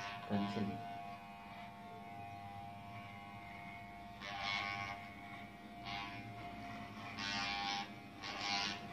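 Corded Wahl electric hair clipper with a comb guard running with a steady buzz and hum. Its sound turns louder and harsher in several short passes about four, six, seven and eight seconds in, as the blades cut through hair.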